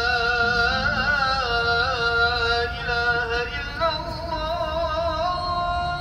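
Music: a single melody line of long, wavering, ornamented held notes that steps up to a higher note about four seconds in.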